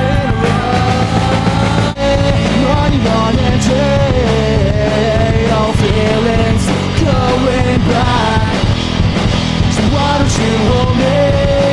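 Loud rock music with a sung or lead melody line over a full band, with a momentary drop about two seconds in.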